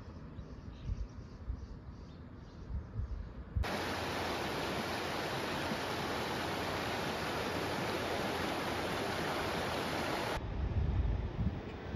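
Rushing water of river rapids: a steady, even rush that starts abruptly about three and a half seconds in and cuts off abruptly about ten seconds in. Before and after it there is only a quieter, gusty low rumble.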